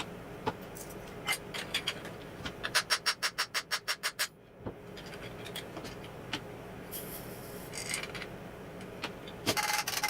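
Bench handling noises while a 7.62x54R steel-case round is pulled down and its powder emptied for weighing: scattered clicks, then a quick even run of about a dozen light taps, and a short hissing rattle near the end.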